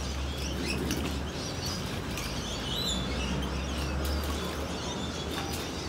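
Several birds chirping and calling in short scattered calls, with one clearer call about three seconds in, over a low steady rumble.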